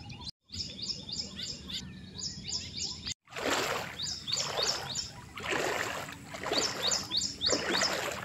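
Birds chirping in quick repeated phrases of short high notes. From about three seconds in, floodwater splashes and sloshes about once a second. The sound cuts out briefly twice.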